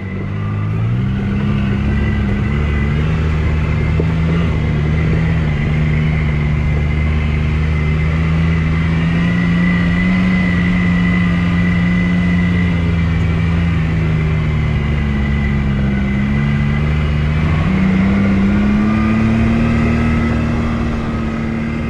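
All-terrain vehicle engine running under way on a trail. It picks up speed in the first second, runs steadily, eases off briefly after about fifteen seconds and picks up again near eighteen seconds.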